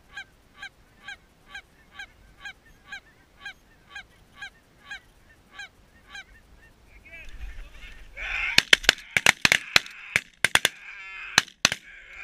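Goose honking, short calls evenly repeated about twice a second, swelling into a loud clamour of honks. In the last four seconds a rapid volley of about a dozen shotgun shots from several guns cuts through it.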